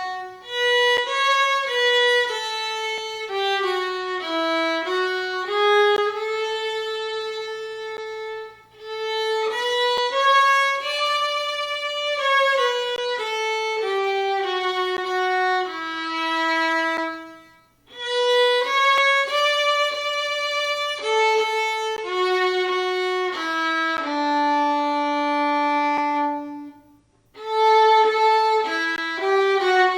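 Solo unaccompanied violin playing a slow, sustained melody in phrases, with short breaks between phrases about 9, 18 and 27 seconds in.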